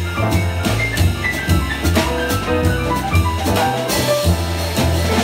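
Jazz piano trio playing: grand piano melody and chords over walking upright bass notes, with a drum kit played with sticks on snare and cymbals.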